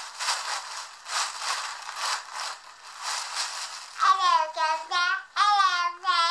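Breathy rushing of gas in pulses about a second apart as a girl inhales helium from a foil balloon's neck. About four seconds in, she sings in a funny helium-altered voice, with long gliding notes.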